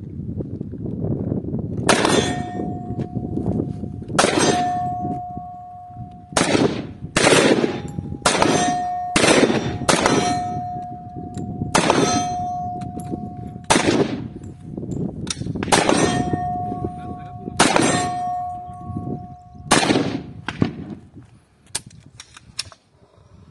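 Kalashnikov Saiga .223 (5.56x45) rifle fired in single shots at steel targets, about a dozen shots at an uneven pace of roughly one every one to two seconds. Most shots are followed by the steel plate ringing with a clear, lingering tone.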